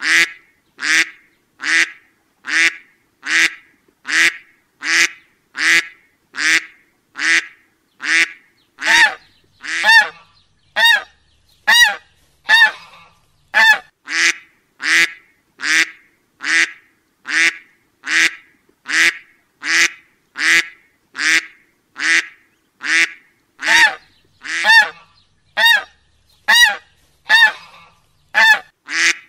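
A duck quacking over and over at a steady, even pace, a little more than one short quack a second.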